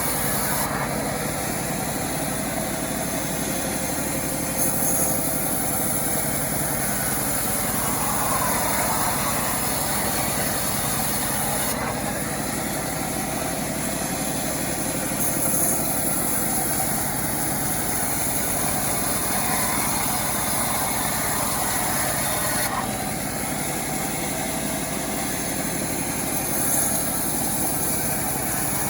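Engine of a self-assembled chainsaw running steadily.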